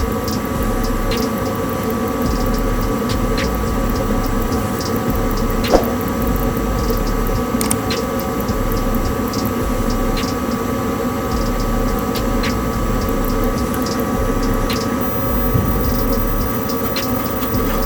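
Goodman gas furnace running steadily, its draft inducer motor whining, with a faint tick about every two seconds. The blower fan that should start is not turning at all: the blower motor is stiff and seized.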